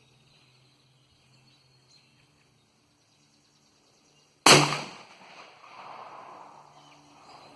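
A single rifle shot, a sudden loud crack about four and a half seconds in, followed by its echo fading away over about two seconds.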